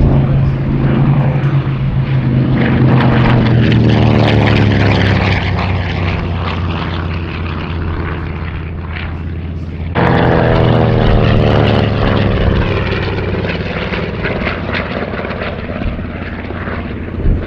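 Grumman TBM-3 Avenger's Wright R-2600 twin-row radial engine and propeller passing low, the engine note falling in pitch as it goes by. About ten seconds in the sound breaks off abruptly into another pass, whose note falls again.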